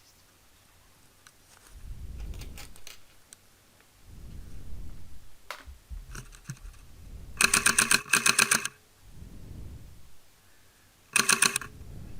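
Airsoft electric gun firing rapid full-auto bursts: two quick strings about seven to eight seconds in, then another short burst near the end, each a fast run of sharp clicks over a motor whine. Low muffled rustling of movement comes in between.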